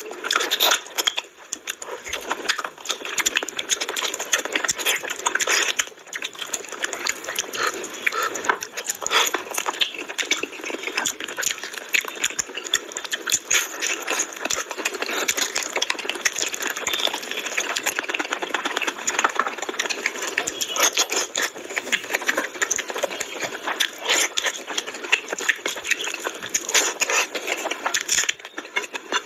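Close-miked eating sounds: a man chewing and biting mouthfuls of mutton curry and rice eaten by hand, a dense, continuous run of mouth clicks and crackles.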